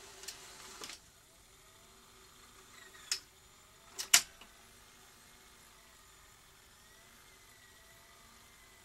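Front-panel buttons of a Philips N1700-type video cassette recorder pressed: a short rustle in the first second, then a few sharp clicks, the loudest a double click about four seconds in, over a faint steady hum.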